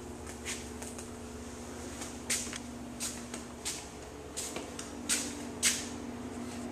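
Footsteps scuffing on a concrete garage floor, about a dozen short scrapes at an uneven walking pace, over a steady low hum.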